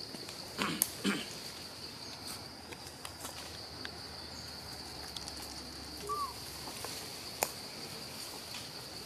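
Steady high-pitched insect drone, with two short rustling knocks about a second in and one sharp click later on.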